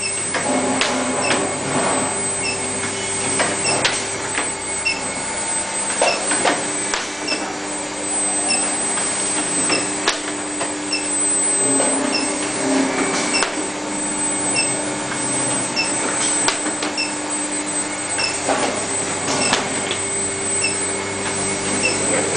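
Small induction heating machine running while a steel bar heats red-hot in its coil: a steady high whine over a steady lower hum, with faint ticking about once a second and scattered clicks and knocks.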